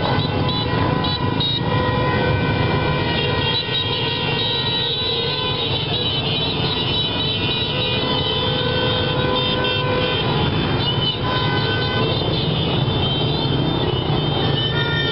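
Many small motorcycle and scooter engines running together in a slow-moving convoy, with horns tooting on and off over the steady engine noise.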